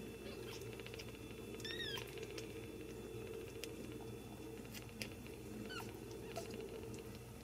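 Newborn Ragdoll kittens nursing, giving a few faint, high, squeaky mews. The clearest comes about two seconds in and smaller ones near the end, with a few soft clicks over a steady low hum.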